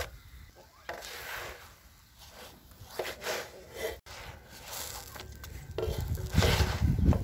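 Wooden spatula scraping and sliding under a börek on a metal sac griddle as it is lifted and turned, with a few short scrapes and knocks, loudest near the end.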